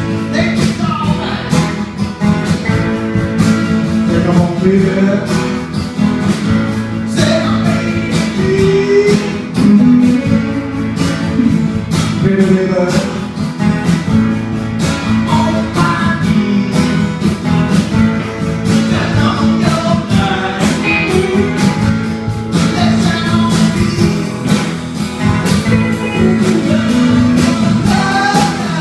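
Two electric guitars played together through amplifiers, a steady rhythm part with a melodic line moving over it.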